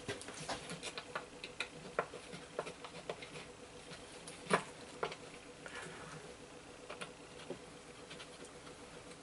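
Scattered light clicks and taps of hand tools and hardware being handled while a drawer handle is fitted and checked, with two sharper knocks about four and a half and five seconds in.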